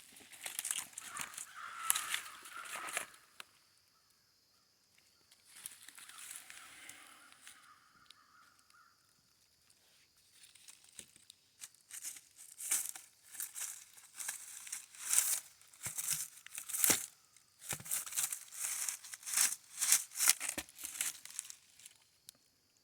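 Footsteps crunching and rustling through dry leaves and undergrowth, in irregular stretches with short pauses.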